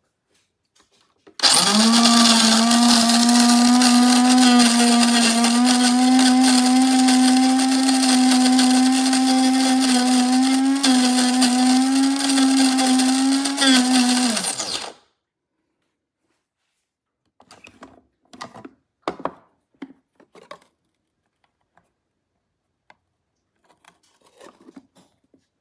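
Cuisinart DBM-8 electric burr coffee grinder running for about thirteen seconds with a loud, steady motor hum, then stopping abruptly. A few light clicks and knocks follow.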